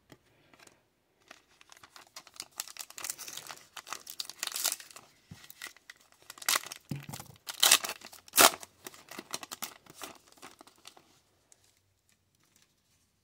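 Foil trading-card pack wrapper being torn open and crinkled by hand, in irregular crackles and rips, the loudest, sharpest rips a little past the middle.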